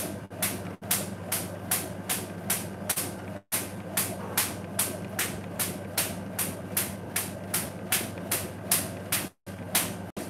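Jump rope slapping a tile floor with each hop, in a steady rhythm of about three sharp slaps a second, over a low steady hum. The sound cuts out briefly three times.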